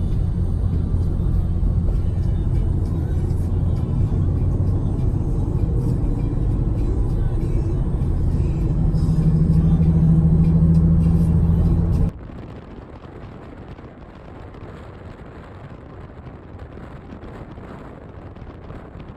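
Car engine and road noise inside a moving car, a steady low rumble that grows a little louder about two-thirds of the way through. It cuts off abruptly about 12 seconds in, giving way to a much quieter outdoor hiss.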